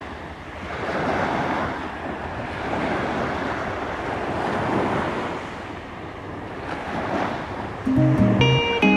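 Small waves breaking and washing up a pebble beach, the surf swelling and ebbing about every two seconds. Plucked guitar music comes in near the end.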